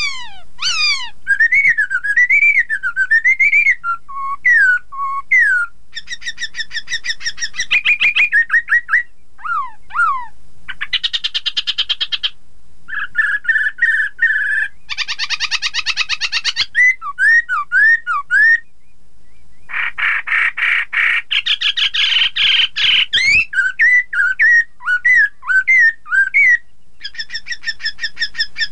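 Black-throated laughingthrush singing loudly: rising-and-falling whistled phrases alternating with long runs of fast repeated chattering notes, with a few short pauses.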